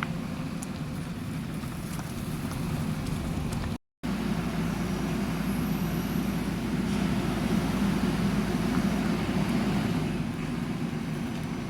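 Diesel engine of a JCB backhoe loader running steadily, broken by a split-second dropout about four seconds in and a little louder in the second half.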